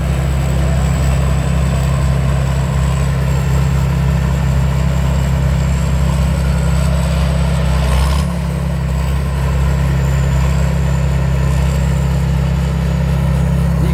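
Combine harvester running steadily under load while cutting rice, a constant low machine drone with a thin, high steady whine above it. About eight seconds in, a brief click is heard and the deepest part of the drone eases slightly.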